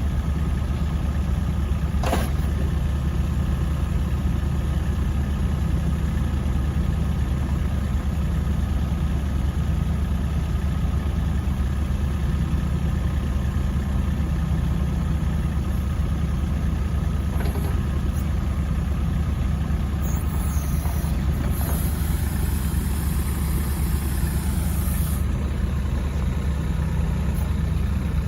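Kubota U-20-3S mini excavator's three-cylinder diesel engine idling steadily.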